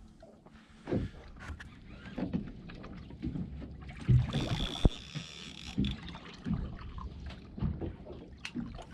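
Water lapping and sloshing against a small boat's hull, with scattered knocks and clunks on board and a brief hiss with a thin high tone about four seconds in.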